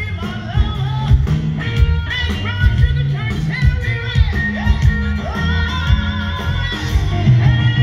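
Live blues band music over a festival PA, with a woman singing the lead, her sustained notes wavering with vibrato, over a steady bass line and beat.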